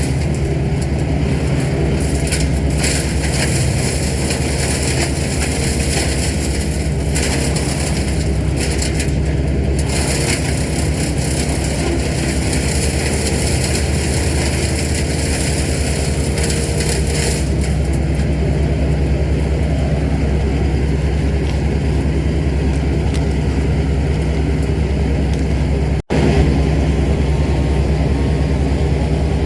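Heavy tree-service machinery with a large engine running steadily at high speed, a harsh hissing, grinding noise over it that is stronger for the first half and then eases. The sound cuts out for an instant near the end.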